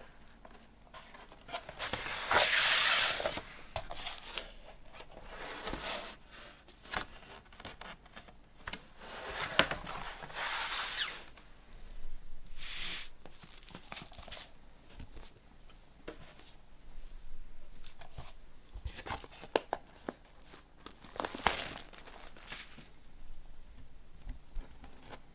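Vinyl LP packaging being unpacked and handled by hand: paper and plastic rustling in several separate bursts, with small clicks and taps between.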